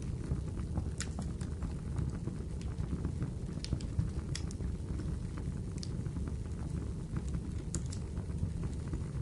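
Wood fire crackling in a fireplace: a steady low rumble of the burning fire with irregular sharp pops and snaps.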